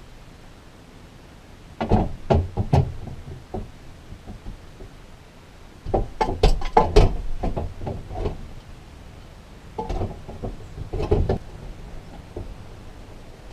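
Irregular knocks and clatter in three bursts, about two, six and ten seconds in. These are the sounds of materials being handled and set in place during build work in the back of the van.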